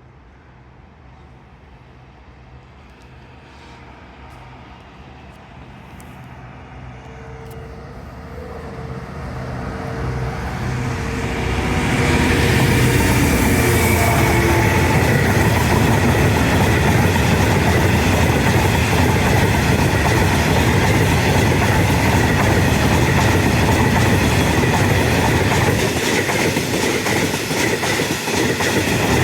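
DB Cargo Class 66 diesel freight locomotive, with its two-stroke V12 engine, approaching and growing steadily louder. It reaches full loudness about twelve seconds in, and its train of freight wagons then rolls past with a steady clickety-clack of wheels over the rail joints.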